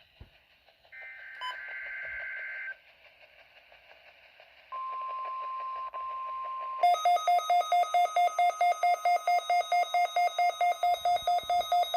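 NOAA Weather Radio receiver: a short burst of SAME data warbling between two high tones, a moment of faint static, then the steady 1050 Hz warning alarm tone for about two seconds. About seven seconds in, the receiver's own alert alarm sets off, loud rapid beeping at about four beeps a second.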